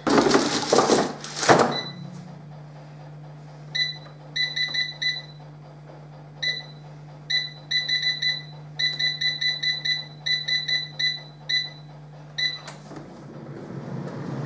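Digital air fryer being loaded and set: a clatter as the basket goes in, then a long run of short high beeps, one for each press of the touch-panel buttons as the cooking time is stepped up. Near the end the air fryer's fan starts and runs steadily.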